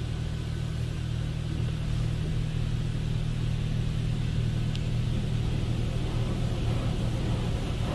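Water Wizard 1.0 touchless car wash running, heard from inside the car's cabin: a steady low hum of the machine with water spraying over the car.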